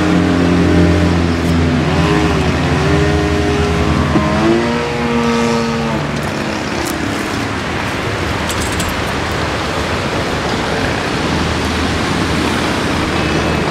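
Kingtech K-80 model jet turbine running loud. For the first six seconds or so its whine shifts up and down in pitch, then it settles into a steady rushing roar.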